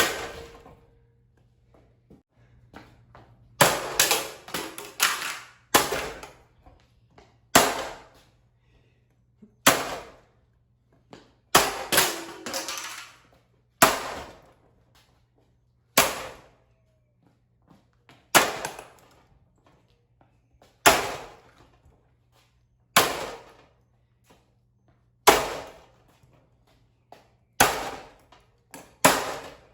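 Repeated sharp hits on a ceiling fan's plastic blades, about one every two seconds with a couple of quick flurries, each ringing out briefly.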